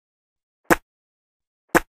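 A person spitting: two short, sharp spits about a second apart.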